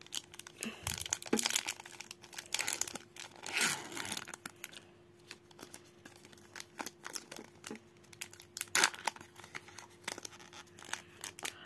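Foil Pokémon booster pack wrapper torn open by hand: a dense run of tearing and crinkling over the first four seconds or so, then scattered crinkles and clicks as the wrapper and cards are handled.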